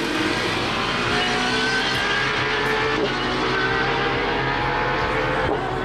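Aston Martin Valkyrie AMR Pro's 6.5-litre naturally aspirated Cosworth V12 at high revs under full acceleration down the strip, loud and steady. Its pitch breaks briefly about three seconds in and again near the end.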